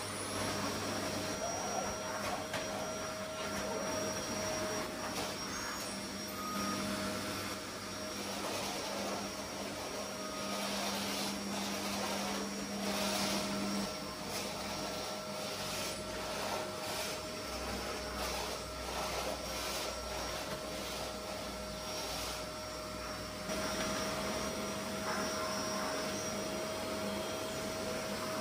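Canister vacuum cleaner running steadily with a constant whine, its nozzle pushed across a hard floor, with a few light knocks.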